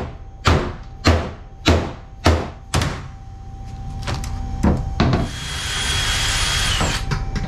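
Six mallet blows about half a second apart, knocking a loose strip of aluminum diamond-plate wall molding back into place. Two lighter knocks follow, then a cordless drill runs for nearly two seconds into the plate, its whine dropping as it stops.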